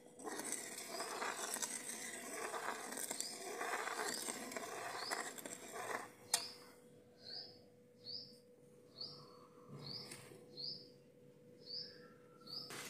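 A bird calling with a run of short, high chirps, about one every two-thirds of a second, faint at first and clearer through the second half. A steady hiss fills the first six seconds.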